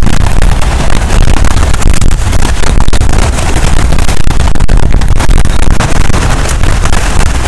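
Strong sea wind buffeting the microphone in a loud, fluttering low rumble, over waves washing against the rocks.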